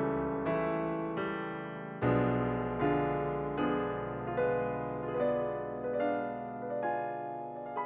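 Background music: slow, gentle piano (electric piano tone) playing chords and single notes about every second, each note ringing and fading.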